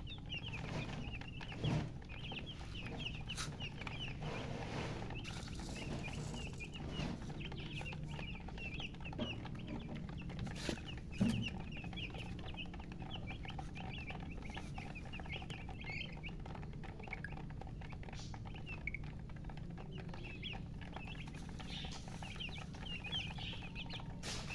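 A group of baby chicks peeping constantly, many short high peeps overlapping, calls that the uploader puts down to thirst. A steady low hum runs underneath, with a thump about two seconds in and another near the middle.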